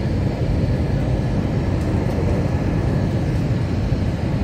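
Steady jet airliner cabin noise, the engines and rushing air heard from inside the cabin at a window seat while the plane is on approach to land.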